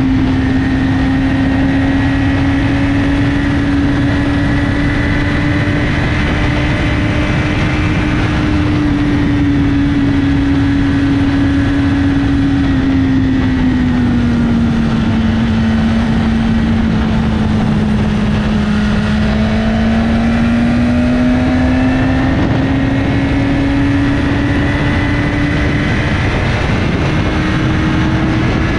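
BMW S1000RR inline-four engine with an Akrapovic slip-on exhaust running at a steady cruise. Its pitch eases down about halfway through, climbs back, and steps up a little near the end, over steady wind and road noise.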